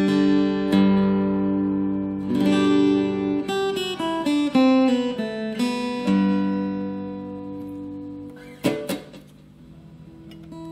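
Future FAG006C 40-inch linden-bodied acoustic-electric guitar played fingerstyle: a run of chords and melody notes, the last chord left ringing and fading. About nine seconds in come a few knocks and string noise as the guitar is handled, then faint ringing.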